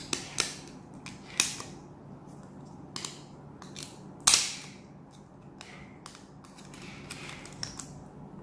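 Sharp plastic clicks and snaps as a colour filter and its adapter are pushed onto an Ulanzi L1 Pro mini LED light, about half a dozen in the first half, the loudest a little over four seconds in, then a soft plastic rubbing near the end.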